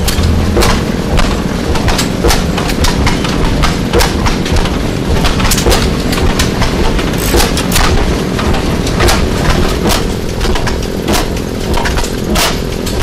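Antique stationary gasoline engines running, among them an Economy hit-and-miss engine, firing sharp exhaust pops at uneven intervals, one to three a second, over a steady mechanical drone.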